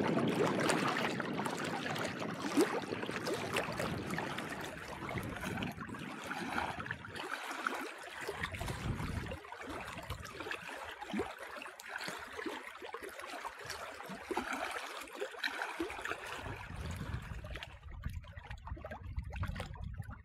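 Small lake waves lapping and trickling at a rocky shoreline, with a low rumble coming in near the end.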